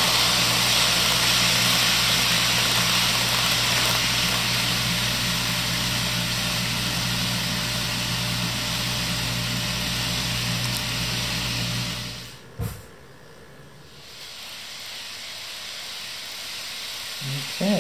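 HO scale model trains running on the track: a steady whir of the locomotive motors with wheels rolling on the rails, which cuts off about twelve seconds in, then builds up again more quietly as another train approaches.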